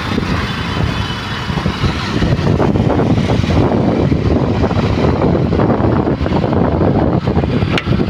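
Steady vehicle and road noise heard from a moving vehicle, a dense low rumble with wind on the microphone.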